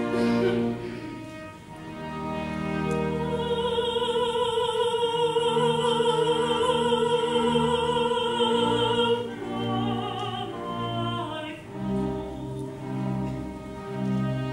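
Mezzo-soprano singing a slow Baroque opera aria over a string orchestra. A few seconds in she holds one long note with a wide vibrato for about five seconds, then sings a couple of shorter phrases before the strings carry on alone under sustained low notes.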